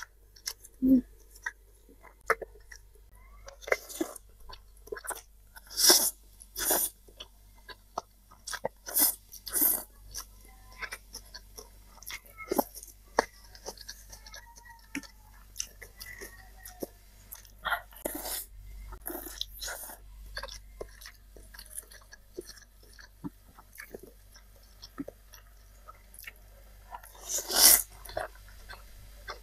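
Close-miked eating: a person chewing spicy instant cup noodles with egg and cucumber, with irregular wet mouth clicks and crunches. A longer, louder noisy sound comes a little before the end.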